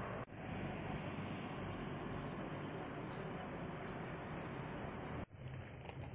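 Outdoor ambience of insects: a steady high-pitched insect drone with small chirps over it, above a broad rushing background noise. The sound cuts out for an instant twice, a moment in and again near the end, at edits.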